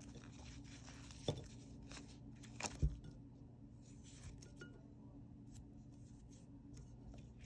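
Fingers peeling the skin off a cooked sweet potato over a ceramic bowl: faint soft handling sounds with a few light clicks and knocks, one a low thump about three seconds in, over a steady low hum.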